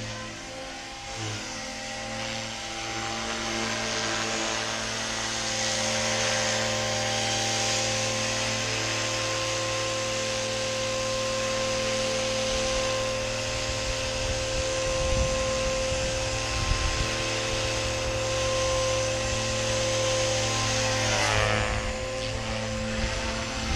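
GAUI X3 electric RC helicopter, with its GM-302S brushless motor and rotor, running with a steady multi-toned whine at medium headspeed during 3D flight. The pitch sweeps down and back up near the end as it manoeuvres, and low gusty rumbles come and go in the second half.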